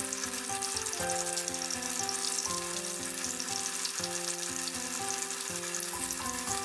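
Starch-coated smelt deep-frying in a pan of oil at about 170 °C: a steady, crackling sizzle.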